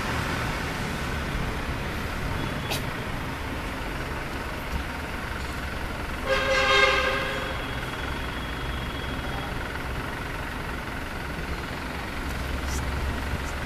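Steady low mechanical hum, with a short pitched toot lasting about a second, about six seconds in, and a couple of faint clicks.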